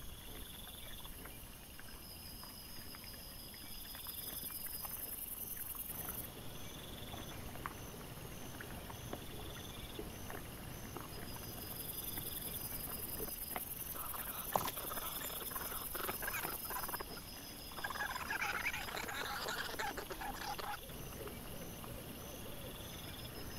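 Wild boar feeding and snuffling in sped-up trail-camera audio: a steady hiss with scattered clicks, and two louder bursts of animal noise in the second half. A faint repeating high chirp runs underneath.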